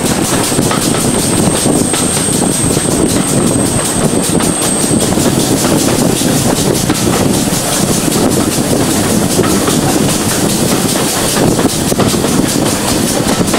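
Steam train running at speed behind GWR 5700 class pannier tank 5786, heard from an open carriage window close behind the locomotive: a steady, loud rush of running noise with a rapid regular beat. A faint high whine sounds for the first few seconds.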